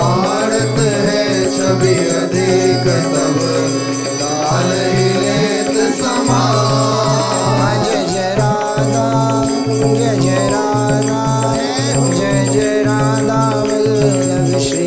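Devotional music: a steady low drone under a gliding melody line, with light, frequent percussion.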